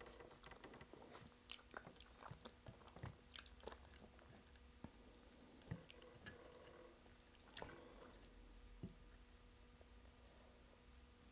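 Faint close-up mouth sounds of someone chewing and eating starch fufu with egusi soup: irregular soft wet clicks and smacks, thickest in the first few seconds.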